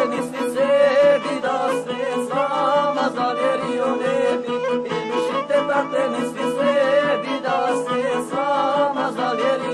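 Traditional Bosnian izvorna folk music: a violin and a singing voice over a steady beat.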